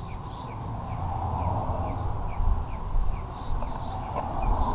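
Motor oil pouring in a steady stream from a plastic jug into the engine's oil filler neck. A bird chirps repeatedly in the background, with short falling chirps a few times a second.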